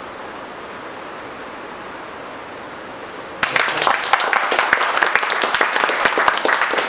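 A steady, even hiss, then a little over three seconds in a group of people starts clapping together, a dense patter of many hand claps.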